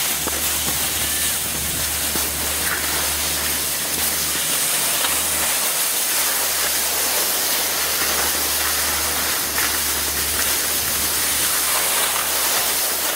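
Steady hiss of skis sliding and carving over snow, over a continuous low rumble.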